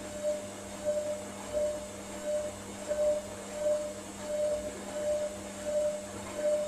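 Hotpoint Ariston Aqualtis washing machine on its wool programme's last rinse, the motor slowly turning the drum full of water and wool garments. Under a steady hum, a motor tone swells and fades about three times every two seconds.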